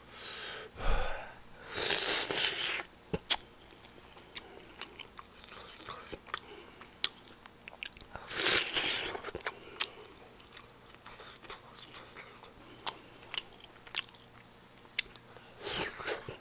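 A person chewing food close to the microphone: wet mouth clicks and smacks, with a few longer breathy bursts of noise between bites.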